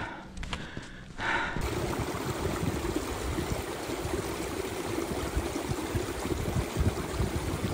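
Steady rushing noise that starts abruptly about a second and a half in.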